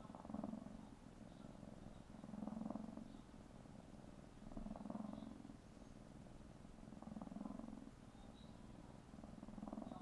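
Tabby kitten purring while kneading on an adult cat: a continuous buzzing purr that swells louder about every two and a half seconds, five times in all.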